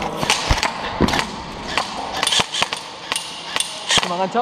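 Airsoft electric rifle firing a string of single shots at an irregular pace, each a short sharp crack.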